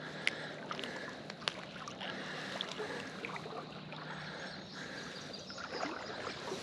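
Creek water splashing and trickling, with scattered small splashes and clicks.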